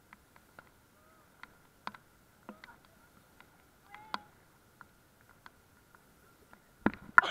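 A few faint high-pitched vocal calls among scattered small clicks and knocks, over a steady faint high whine; a louder knock and a voice near the end.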